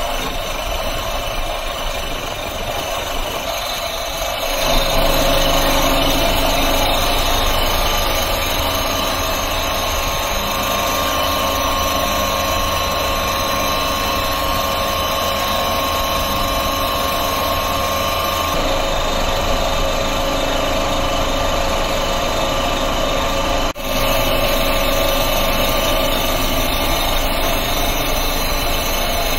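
Macaroni-making machinery running steadily: the pasta extruder's cutter and the shaking perforated sieve tray give a continuous mechanical hum with steady tones. It steps louder about five seconds in and changes character abruptly a couple of times later.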